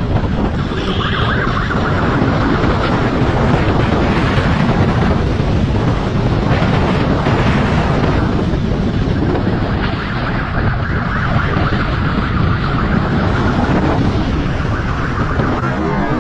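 Motorcycle riding at speed, heard from a camera mounted on the bike: heavy wind noise on the microphone over the running engine.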